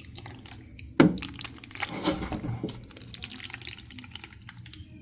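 Water dripping and splashing, with scattered small clicks and one sharper knock about a second in.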